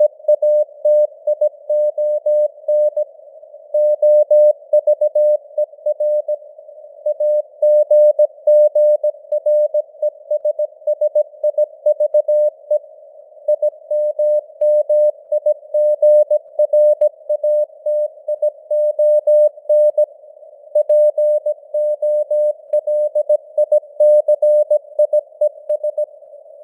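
Morse code (CW) at 17 words per minute: a single mid-pitched tone keyed on and off in dots and dashes, over a faint hiss of simulated radio noise, with the signal strength fading up and down (QSB).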